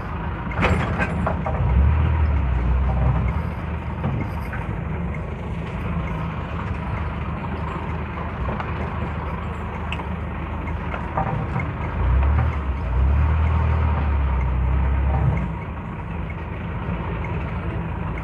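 Owner-type jeep driving along a town street, heard from inside: a steady low engine and road rumble that grows louder twice, briefly near the start and for a few seconds past the middle.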